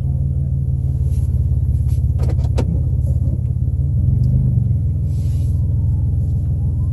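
Vehicle engine running with a steady low rumble, and a few faint clicks about two and a half seconds in.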